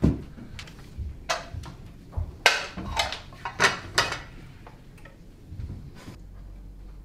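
Shoes being pulled off and set down on a hard floor: a handful of sharp knocks and clatters through the first four seconds. Then quieter movement as a refrigerator door is opened near the end.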